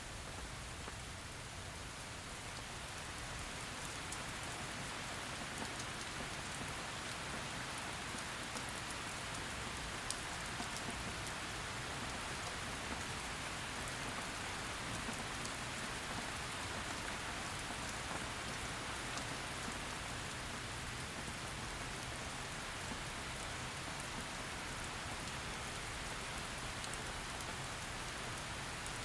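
Steady heavy rain falling on a surface, with scattered faint drop ticks, growing slightly louder over the first few seconds and then holding even.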